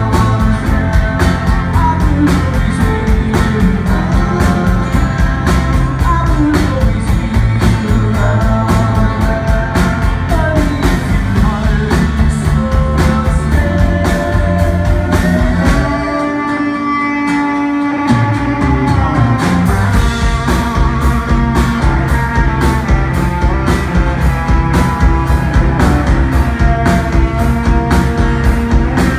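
Live rock band playing: electric and acoustic guitars, bass and drums at a steady beat. About halfway through, the drums and bass drop out for about two seconds, leaving held guitar notes, then the full band comes back in.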